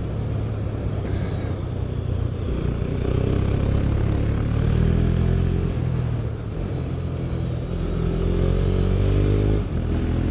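KTM Duke motorcycle engine under way, pulling up in pitch twice as it accelerates, with a short easing off between and a sudden drop in revs near the end, like a gear change. It is heard through a helmet microphone with a steady rush of wind noise.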